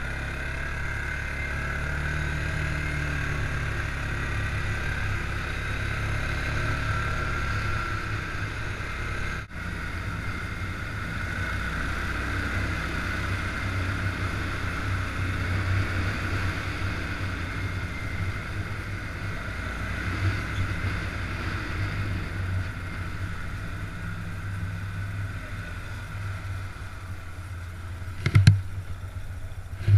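Stels ATV 700 H EFI quad bike's single-cylinder engine running steadily while being ridden, with one sharp knock near the end.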